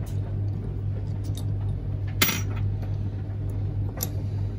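Small metal clicks and clinks as a two-arm gear puller is handled and fitted over a motor's pinion gear, with one sharp click about two seconds in and another near the end, over a steady low hum.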